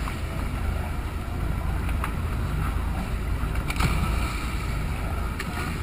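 Dive boat's engine running with a steady low rumble, wind on the microphone and water sloshing around the hull. A few short, sharp noises cut through, the loudest about four seconds in, as divers drop into the water.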